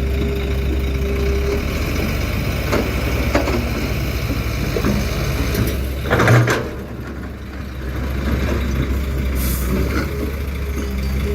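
Heavy diesel engines of dump trucks and an excavator running steadily, with a short loud burst about six seconds in, after which the engine noise drops quieter for a moment before picking up again.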